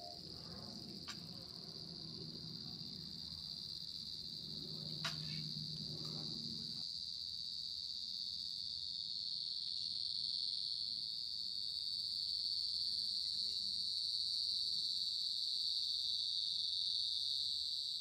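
A steady, high-pitched insect chorus that grows gradually louder over the first half, then holds.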